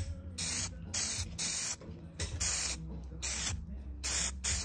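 SEM Color Coat aerosol spray can hissing in a series of short bursts, about half a second each, as Palomino color is sprayed onto a vinyl seat cushion. A low steady hum runs underneath.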